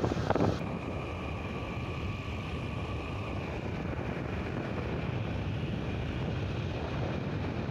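Motorcycle running steadily at cruising speed on the road, its engine and road noise heard as an even, unchanging rumble.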